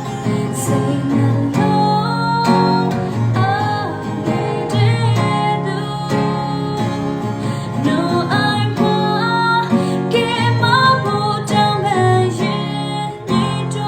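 Gospel song music built on acoustic guitar, with a melody line running over the accompaniment.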